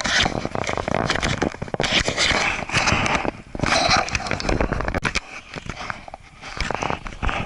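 Irregular crackling and scraping noise made by the case of a chest-mounted Sony HDR-AS30V action camera as it records. The noise is loud throughout and eases off briefly about five seconds in.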